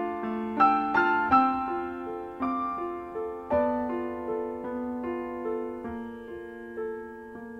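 Slow, gentle solo piano music: single melody notes struck over ringing chords, the playing thinning out near the end to a held chord that fades.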